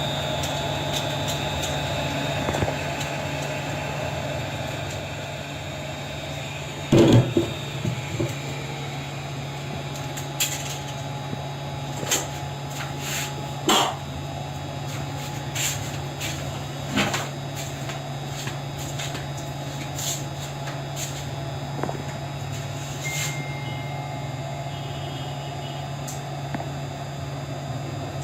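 Quick 706W hot air rework station's blower running steadily on a test run after a heater arm replacement, with scattered clicks and knocks from handling, the loudest about seven seconds in.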